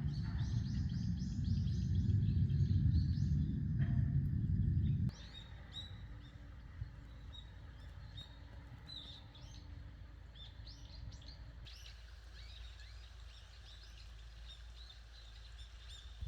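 Small birds chirping and twittering repeatedly. For the first five seconds a loud low rumble lies under the chirps, then it cuts off abruptly and the chirps carry on over a quieter background.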